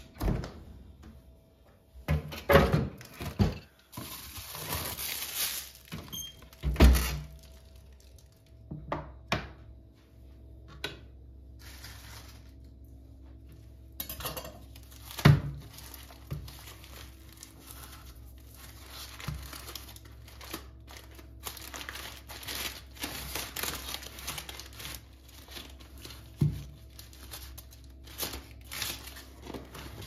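Kitchen handling sounds: a refrigerator door opening at the start, several separate thunks and knocks, and the crinkling of a baking-paper-wrapped package handled on a plastic cutting board, most continuous in the second half.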